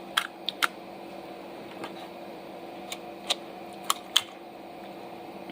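Meat being coated by hand with a jerk marinade: scattered light clicks and taps, about six of them, over a steady background hum.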